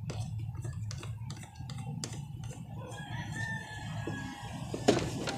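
Light plastic clicks and knocks as a high-pressure hose fitting is pushed into the outlet at the base of a pressure washer, with a sharper knock near the end. A rooster crows about three seconds in.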